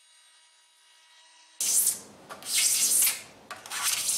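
Hand scraper drawn across the top of a solid Jarrah and Blackwood block, scraping epoxy filler smooth. About a second and a half in come three rough, hissing scraping strokes, each about half a second long.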